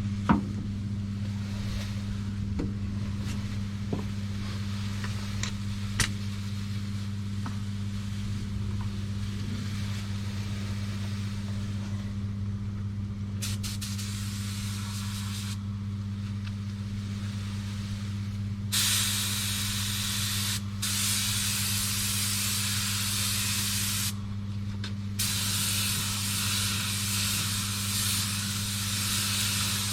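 A steady low motor hum, with several bursts of spraying hiss a few seconds long in the second half, the kind made by a spray gun or a pressure-washer lance. A few sharp clicks come in the first few seconds.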